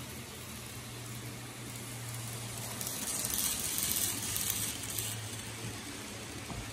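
N gauge model trains running on the layout's track: a steady low hum under a hissy rolling rattle of small wheels and motors. The rattle grows louder and brighter for a couple of seconds in the middle.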